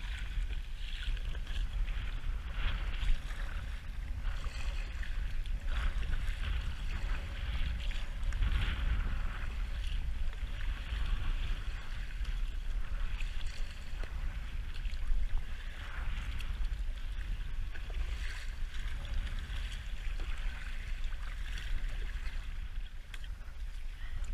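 Wind buffeting the action-camera microphone with a steady low rumble, over choppy lake water slapping and splashing against an inflatable kayak, with irregular paddle splashes every second or two.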